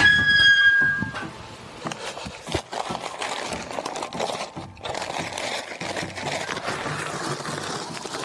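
A brief high squeak lasting about a second, then a paper sack of screed dry mix being slit open with a utility knife and handled, the paper crinkling and rustling.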